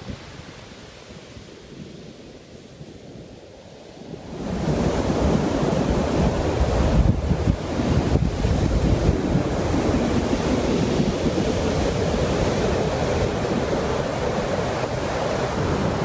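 Ocean surf washing onto a sandy beach. About four seconds in the sound jumps much louder, with wind rumbling on the microphone over the waves.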